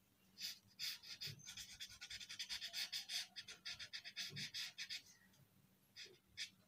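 Felt-tip marker scratching on paper in quick back-and-forth strokes as it colours in a letter, the strokes running for about four seconds, then a few light taps near the end.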